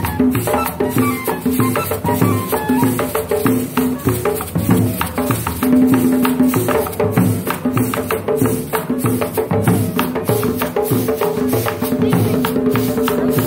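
Live traditional cumbia played by a street percussion group: drums struck with sticks and hands over a fast, steady rattle of shakers. A sustained pitched line is held above the beat.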